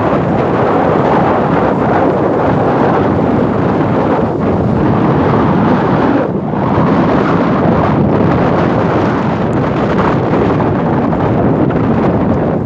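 Strong wind blowing across the microphone, a loud steady rush of rumbling noise with a short dip about six seconds in.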